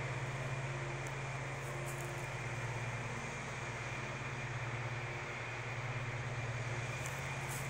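An engine running steadily at one constant speed, a low even hum that does not change.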